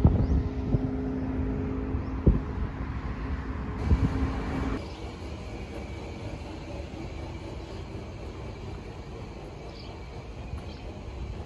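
Traffic passing on a roadside highway, a vehicle's engine hum and tyre noise with a few knocks, fading over the first few seconds. About five seconds in it cuts abruptly to a quieter, steady outdoor ambience with a few faint chirps.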